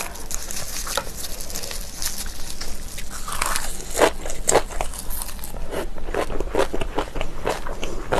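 Close-miked mouth sounds of someone chewing crunchy kimchi, crisp wet crunches that settle into a steady chewing rhythm of about three a second from about halfway through.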